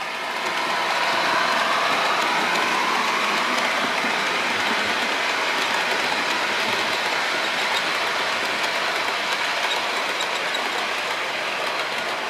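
Model railway train running past on the layout's track: a steady rolling noise of wheels on rails and motor. It grows louder over the first second or so, holds steady, then eases off slightly near the end.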